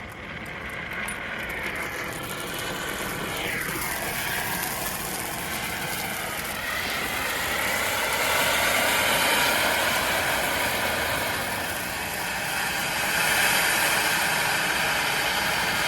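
Two homemade hand-held tube fireworks (tezutsu hanabi) burning at once, jetting sparks with a loud, steady hiss that builds over the first few seconds. A brief falling whistle comes a few seconds in, and the hiss cuts off sharply at the end as the fireworks burn out.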